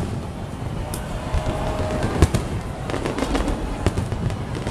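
Fireworks display going off: a rapid, irregular series of sharp bangs and crackles, with the loudest bang about two seconds in.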